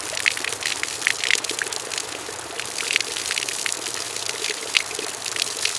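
Water gushing steadily, with scattered sharper splashes.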